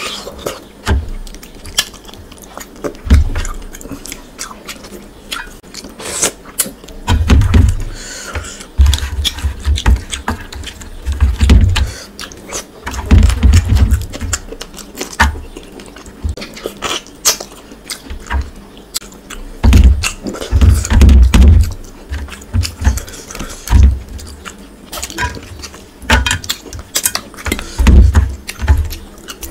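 Close-up eating sounds of fish curry eaten by hand: chewing and wet lip smacking with many irregular clicks and low thuds, and fingers squishing fish in the gravy.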